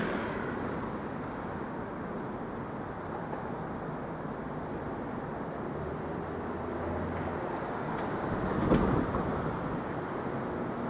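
City street traffic noise, a steady wash of engines and tyres, with one vehicle passing louder about eight and a half seconds in.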